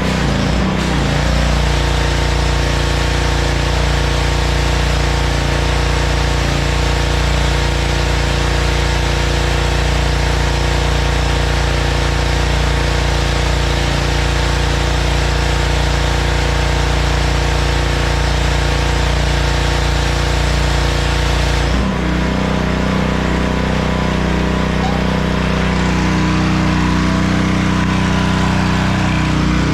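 Honda gas-engine pressure washer running steadily under load, with the hiss of the water spray on concrete. About two-thirds of the way through the spray hiss falls away and the engine note changes.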